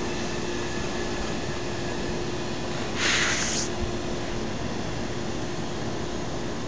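Steady droning hum with a constant low tone, heard as an unexplained noise from the night sky, with a brief hiss about three seconds in.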